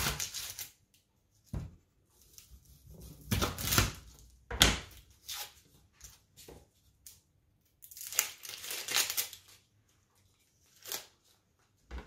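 Dry onion skin crackling and tearing as an onion is peeled by hand, in several separate bursts with short pauses between, along with a few knocks of a knife on a cutting board.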